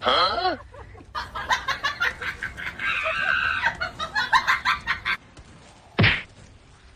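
A chicken calls once with a rising-and-falling squawk, then clucks quickly and repeatedly for several seconds. A single short thump comes about six seconds in.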